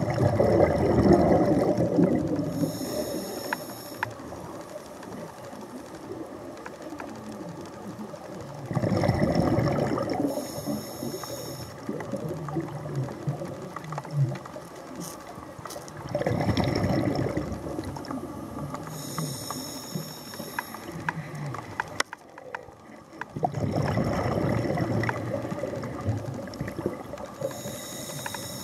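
A scuba diver breathing through a regulator, four breaths about eight seconds apart: each a rumbling gush of exhaled bubbles that ends in a short high hiss of air through the regulator.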